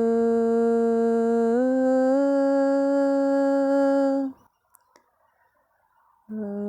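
A woman's voice toning a long held note that steps up slightly in pitch twice and breaks off about four seconds in. After a short pause, a new, slightly lower note begins near the end.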